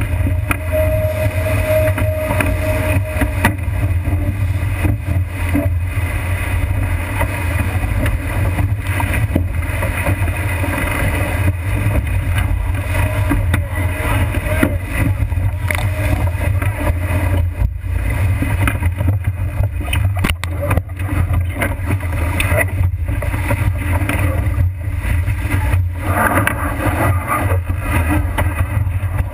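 Strong wind buffeting the microphone of a deck-mounted camera on a heeled-over racing sailboat: a loud, steady low rumble over the rush of water and spray along the hull.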